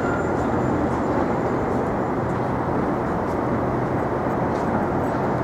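Steady, even rumble of road vehicle noise with a constant low hum.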